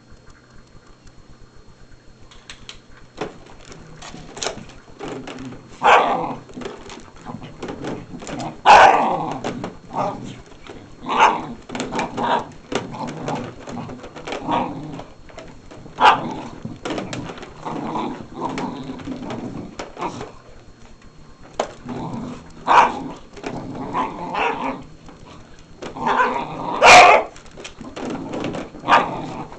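Two dogs barking and growling at a canister vacuum cleaner that is switched off, biting at its floor nozzle. Loud single barks come every few seconds over lower, continual growling, starting a couple of seconds in.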